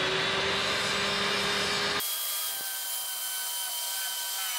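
Circular saw cutting through plywood along a marked angled line: a steady whine over the noise of the blade in the wood. About halfway through, the sound changes abruptly to a thinner, higher whine.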